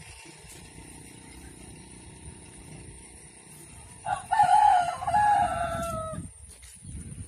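A rooster crows once, starting about four seconds in and lasting about two seconds, its pitch dropping at the end. Under it runs a low, steady rumble.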